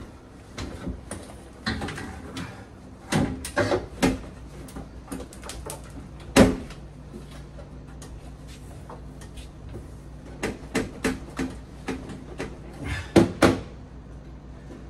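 Irregular knocks and clanks of a Vaillant ecoTEC 836 combi boiler and its metal wall bracket being fitted together, in scattered clusters with one loudest bang about six seconds in.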